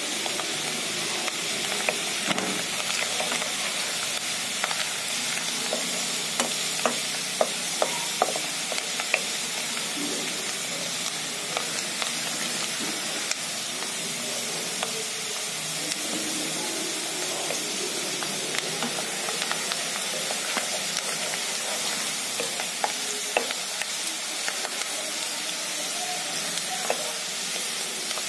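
Sliced onions frying in hot oil in a kadhai, a steady sizzle, with scattered sharp clicks as a wooden spoon stirs them round the pan.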